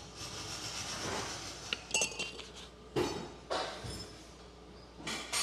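Loose metal suspension parts from removed struts clinking and knocking as they are handled and set down on the workshop floor: several sharp clinks with brief ringing, about two seconds in, around three seconds in, and again near the end.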